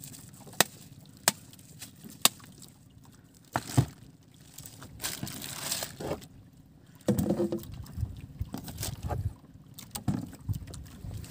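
Handling noises on a small fishing boat's deck. Several sharp knocks come about a second apart, then a louder double knock, then rustling and scraping that is loudest a little past the middle.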